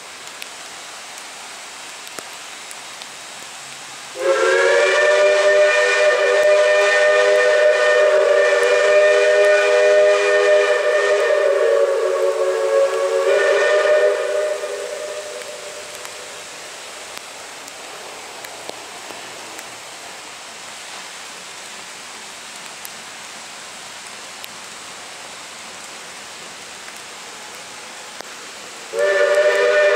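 Steam whistle of a 1907 Baldwin 0-6-0 steam locomotive, No. 58, sounding a chord of several notes at once in one long blast of about ten seconds that starts about four seconds in and trails off, then a second blast starting near the end. A steady hiss of rain lies underneath.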